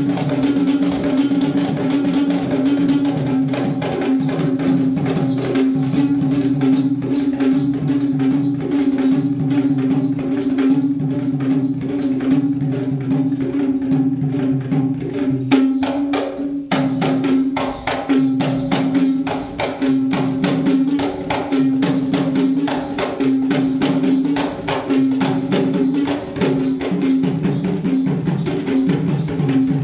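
Kandyan dance music: fast, dense drumming and jingling percussion over a steady held note, with a brief break just past halfway.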